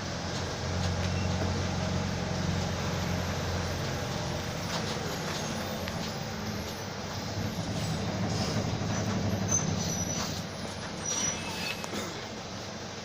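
Mercedes-Benz OF-1722M city bus running on the move: a steady low drone from its diesel engine and drivetrain, with light clicks and rattles.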